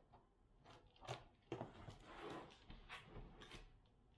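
Scissors cutting the packing tape on a cardboard shipping box: a few quiet, sharp snips with scraping and rustling of tape and cardboard between them.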